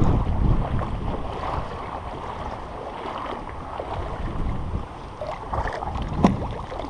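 Strong wind buffeting the microphone: a steady low, noisy rush with a few light clicks and one sharper knock near the end.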